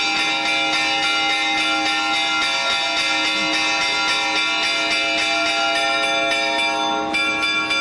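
Church bells ringing continuously, several bell tones overlapping in a dense festive peal.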